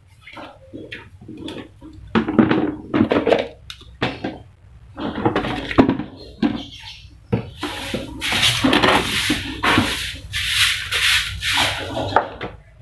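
Long-handled broom sweeping a concrete yard in irregular swishing, scraping strokes, which come faster and brighter from about eight seconds in.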